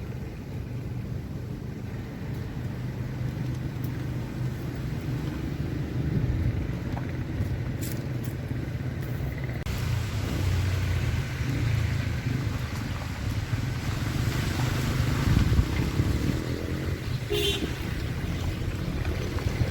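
Car running at road speed with a steady low rumble. A broad hiss joins about halfway through, and a brief short tone sounds near the end.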